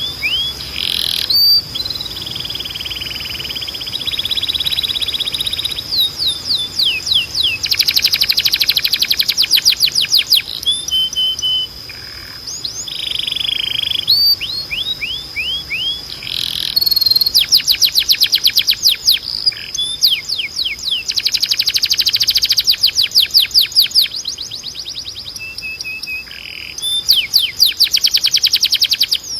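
Timbrado canary singing: phrases of fast trills made of rapidly repeated falling notes, alternating with buzzy rolls and short held notes, with brief pauses between phrases.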